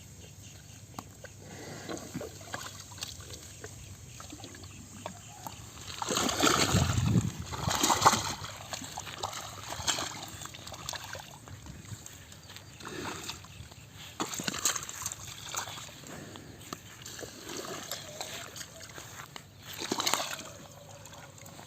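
Water splashing and sloshing around a buffalo, in several irregular bursts, the loudest about six to eight seconds in.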